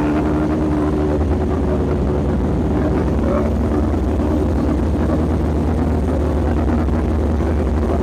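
Honda motorcycle engine running at a steady idle, having just started after fault-finding on a bike that would not start.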